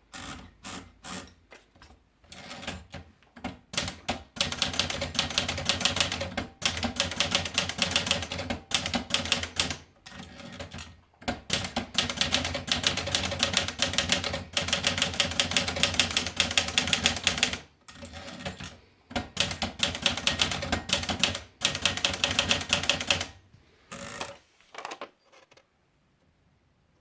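Olivetti Dora manual portable typewriter being typed on fast, in long runs of rapid keystrokes with a few short breaks. Near the end it slows to a few scattered strokes and stops.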